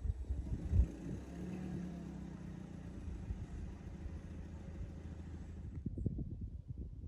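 A motor vehicle running: a steady low rumble with a held hum, the high hiss dropping away near the end.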